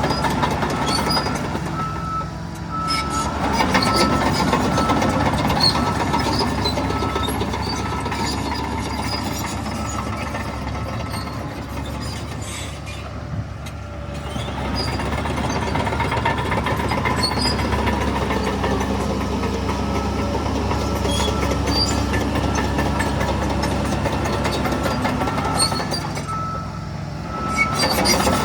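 Heavy diesel earthmoving machinery working: a steady engine sound that loads up and eases off in long swells. A reversing alarm beeps repeatedly for the first several seconds and again near the end.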